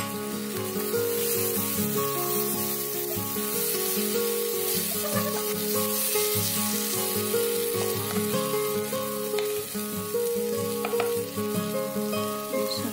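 Onion-and-spice masala sizzling in a non-stick kadai as a wooden spatula stirs it, while the masala is being fried down. Background music plays along with it.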